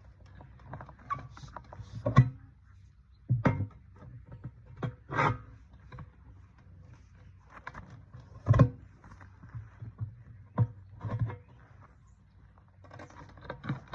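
Tire irons prying a trailer tire's bead over the lip of a steel rim by hand: irregular metal clanks and knocks, about seven in all, with scraping between them, over a low steady hum.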